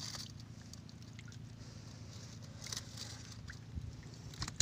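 Steady low hum of a fishing boat's engine running, with scattered clicks and rustles as a plastic-mesh fish trap and net are handled, and a sharp knock near the end.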